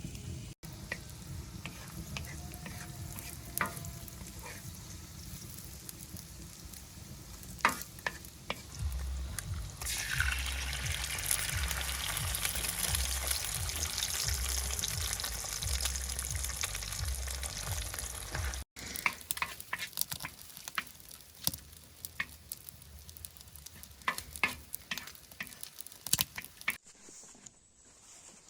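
Food frying in a hot pan, with clicks and scrapes of a utensil stirring it. About ten seconds in, a loud sizzle starts as food meets the hot fat; it cuts off suddenly some eight seconds later.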